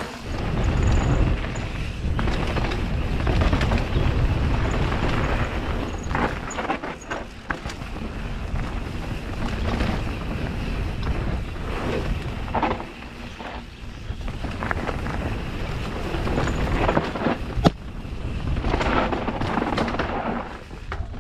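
Mountain bike descending a dirt trail: wind buffeting the microphone over the rolling and rattling of tyres and frame, with scattered knocks from bumps and one sharp knock near the end.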